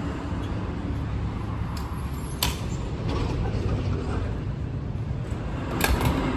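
Petrol dispenser nozzle being handled while a car is refuelled: a sharp click about two and a half seconds in, then a louder clack near the end as the nozzle is hung back on the pump, over a steady low rumble.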